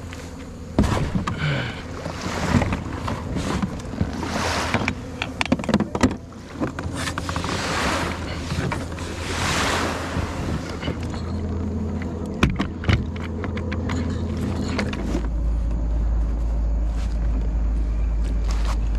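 Kayak on the water: water swooshing and splashing in surges, with scattered knocks against the plastic hull. A steady low wind rumble on the microphone comes in for the last few seconds.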